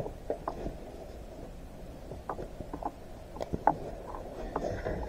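Light, scattered clicks and taps of small metal parts being handled over a tractor shifter housing on a workbench, over a low background rumble.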